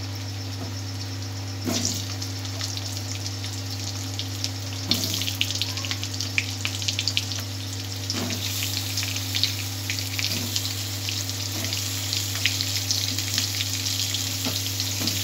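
Raw potato chunks frying in hot oil in an aluminium kadai, sizzling and crackling. The pieces are dropped in one at a time with several soft thumps, and the crackling gets denser from about five seconds in as more potato goes into the oil.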